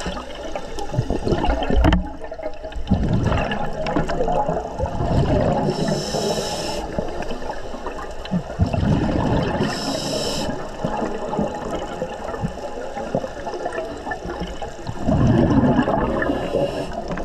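Underwater breathing of a scuba diver through a regulator: bubbling, gurgling exhalations with two short hissing inhalations about 6 and 10 seconds in.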